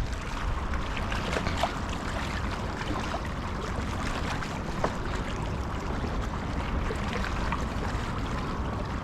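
Steady waterside ambience: water moving, with a few faint ticks scattered through it.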